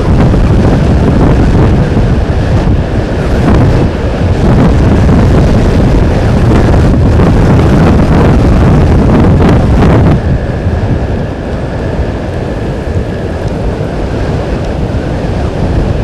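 Strong wind buffeting an outdoor microphone, a loud low gusting noise that eases about ten seconds in.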